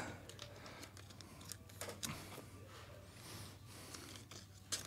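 Faint scattered clicks and light rustling of trading cards and foil packs being handled, over a low steady hum.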